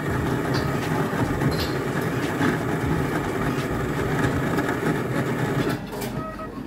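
Automatic bean-to-cup coffee machine running as it makes an espresso, a steady mechanical whirring rumble that stops about six seconds in.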